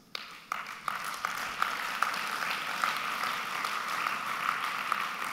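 Audience applauding: dense, steady clapping from many hands, setting in at once after a speaker's applause line.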